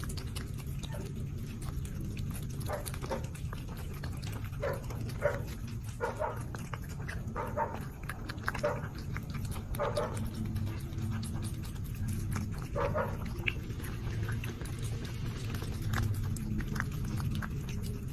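Domestic cat eating from a small bowl, with a low continuous rumble from the cat and short chewing and smacking sounds every second or so, most of them in the first two thirds.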